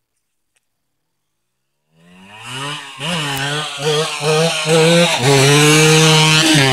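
Yamaha DTR 125 two-stroke single-cylinder engine accelerating hard through the gears as the bike comes up and passes close by. After a silent start it grows in about two seconds in. The pitch climbs and drops back at each of several quick upshifts, then holds high at full throttle and falls off near the end as the bike goes past.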